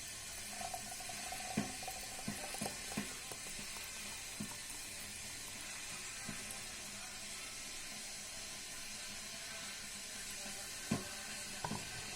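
A spoon knocking and scraping against a pot and a glass jar while a thick, warm cocoa-and-honey mixture is transferred into the jar. It gives scattered single taps over a steady hiss.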